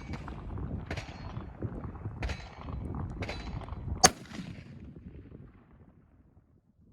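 Wind rumbling on the microphone, then a single sharp rifle shot from a Tikka T3x Lite bolt-action rifle about four seconds in, ringing off briefly.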